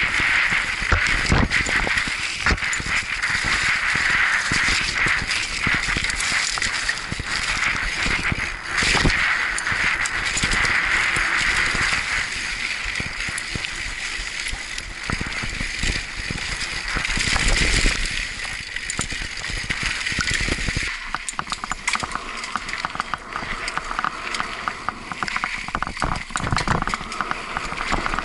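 Mountain bike riding fast down a dirt trail: tyres rolling over the ground, with the chain and bike parts rattling in many quick clicks and knocks over the bumps. The rattling gets choppier and more broken up in the last few seconds.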